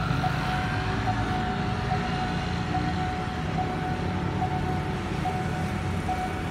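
Railway level-crossing warning alarm sounding a steady electronic tone that breaks and restarts a little more than once a second, while the barriers are down for an approaching train. Low rumble of road traffic underneath.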